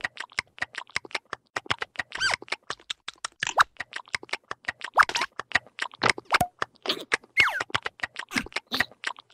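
Cartoon sound effects: a fast, uneven run of dry clicks, several a second, broken now and then by short squeaky chirps that slide up and down in pitch.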